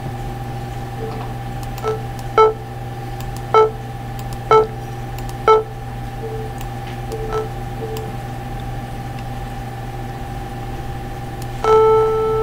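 Simple square-wave synthesizer patched in TouchDesigner, played by clicking a button: a string of short beeps at one pitch, the note cut short by an envelope with its peak length taken out, then several softer ones; near the end a longer held note starts. A steady low hum runs underneath.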